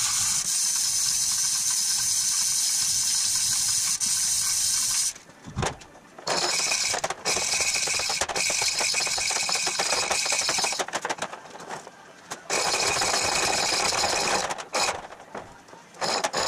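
Hand chain hoist being worked to lower an engine block, the chain rattling and clicking through the hoist. It comes in spells of a few seconds, breaking off briefly about five seconds in, again around eleven seconds, and once more near the end.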